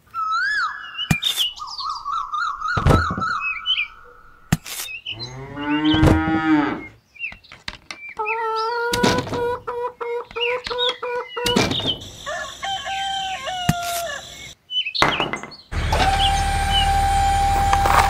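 A string of short, edited sounds: chirping calls, held tones, a pitched glide and a few clicks, like animal and bird calls. From about sixteen seconds a small motor runs steadily with a low hum and one held tone, as the model tipper trailer raises its bed.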